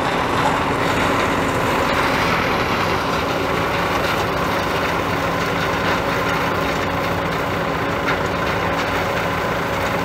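A tractor engine running steadily close by, mixed with a John Deere 9600 combine harvesting corn a short way off. The noise is even, with a constant low hum.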